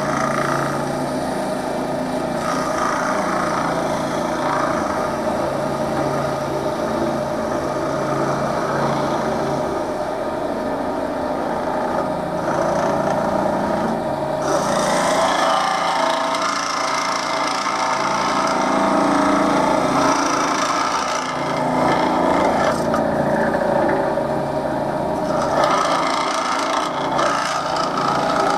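Wood lathe motor running steadily with a turned wooden cup spinning, while beeswax is pressed against the turning wood to finish it, making a rubbing hiss. The rubbing grows louder about halfway through for several seconds and again near the end.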